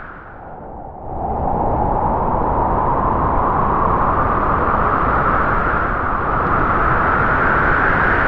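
Howling wind as a spooky ambience: a steady rushing noise with a hollow moaning pitch that sinks and fades briefly at the start, then swells back up about a second in.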